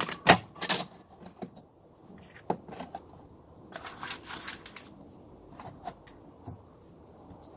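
Small wooden pieces being handled and pressed together: light knocks and clicks of wood on wood and on the bench, with rustling in between, two of the knocks coming in the first second.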